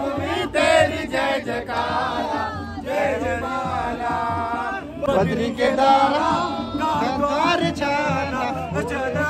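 Male voices chanting and singing protest slogans together.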